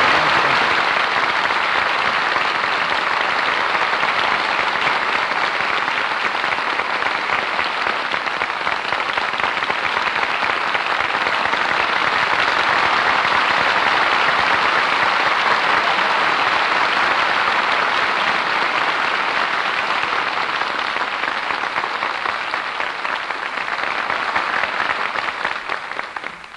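Studio audience applauding in one long, steady round of clapping that fades out near the end.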